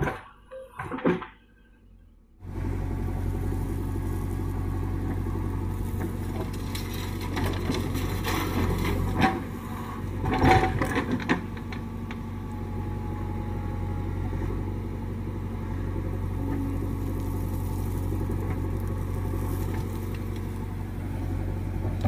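JCB 3DX backhoe loader's diesel engine running steadily under load as it digs and swings its bucket, with a few louder knocks about ten seconds in. Before the engine sound starts, about two and a half seconds in, there are a couple of short sounds and a moment of near quiet.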